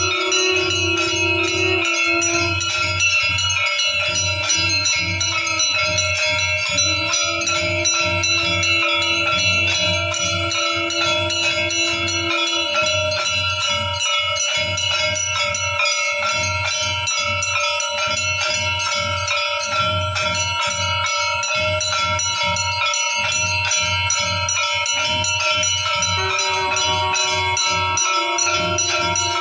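Temple bells ringing fast and continuously during an aarti, over a low pulsing beat. A held low tone joins them at the start, again from about seven to twelve seconds in, and near the end.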